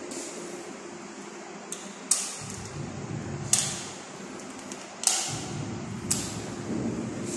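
Four sharp taps or knocks, a second or so apart, over a low rumble that comes in after the first tap.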